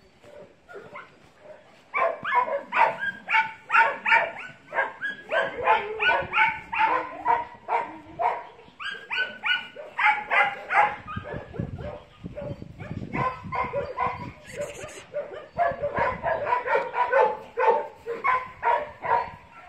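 A dog barking over and over, about two to three barks a second, starting about two seconds in; the barking eases for a few seconds in the middle, then picks up again.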